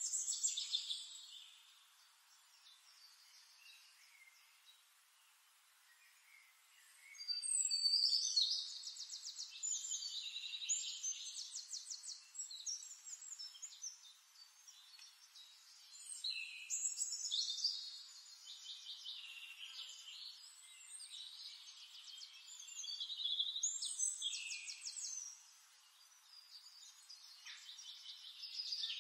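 Songbird singing high, rapid trills and chirps in phrases a few seconds long, with quieter pauses between.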